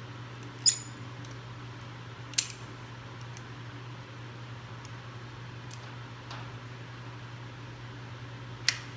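Steel locking pliers (vise grips) being adjusted and clamped onto a drum rim: three sharp metal clicks, one about a second in, one a couple of seconds later and one near the end, with a few faint ticks between, over a steady low hum.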